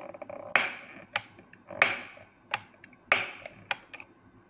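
Replica flintlock pistol's lock being worked by hand: the hammer cocked with small clicks and then snapped down by the trigger, three times, each snap a sharp metallic click with a short ring.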